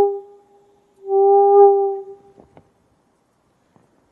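Rijke tube, a metal pipe with a red-hot double layer of nichrome wire screen inside, singing one steady organ-pipe-like tone with overtones. It dies away as the pipe is tipped horizontal, sounds again about a second in and fades out about two seconds in. The tone is driven by hot air rising through the heated screen and stops when the hot gases can no longer rise.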